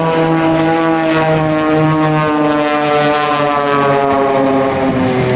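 Propeller-driven aerobatic planes flying overhead in formation, their engines and propellers making a loud, steady tone that slides slowly down in pitch.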